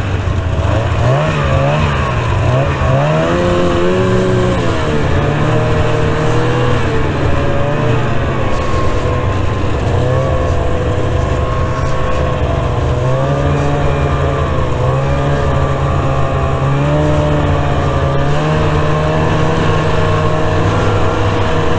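Snowmobile engine running under way on a trail, its pitch rising and falling again and again as the throttle is worked.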